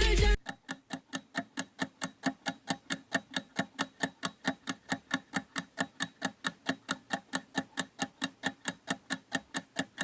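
Rapid, even ticking like a clock sound effect, about four to five ticks a second, starting just after the music cuts off.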